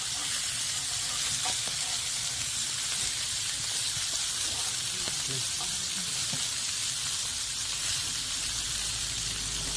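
Pork belly sizzling on a hot griddle plate on a wood-burning stove: a steady frying hiss.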